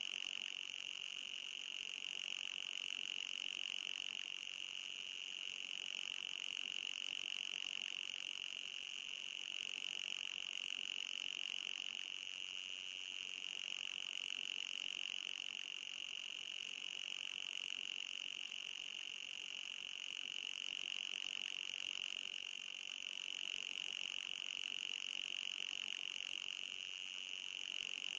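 Synthetic anti-mosquito repellent sound: a steady high-pitched electronic buzz with a fainter, higher band above it, holding an even pitch and level.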